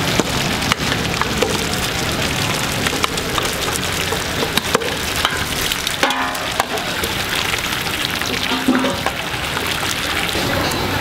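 Huge wok of milky pork-bone broth churning and bubbling while a large metal ladle stirs it, with frequent sharp clinks of the ladle against the metal.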